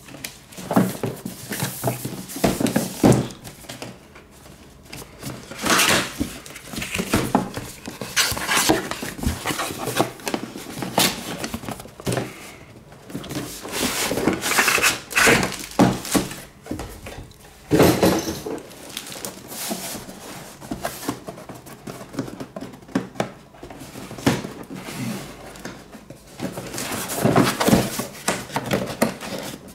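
Cardboard router packaging being handled on a table: the boxes slide, scrape and knock, with irregular rustles and thuds throughout.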